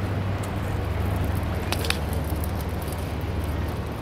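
Steady low rumble of harbour background noise, boat traffic on the river mixed with wind, with a few faint clicks near the middle.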